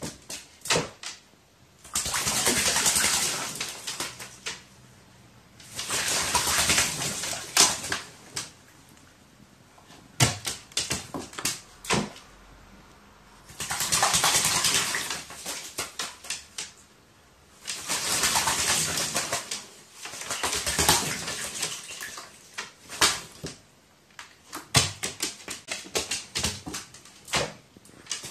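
A crow bathing in water, splashing in bouts of two or three seconds, several times over, with small splashes and drips between the bouts.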